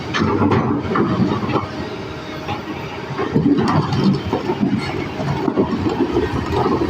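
Excavator running, with a dense rattle of metal clanks and knocks throughout.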